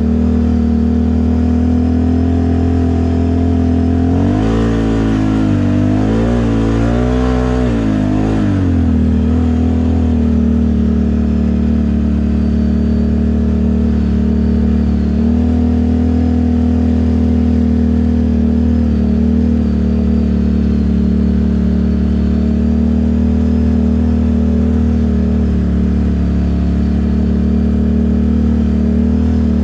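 Off-road vehicle engine running at a steady speed, revved up and down in a few pulls about four seconds in, then settling back to a steady run.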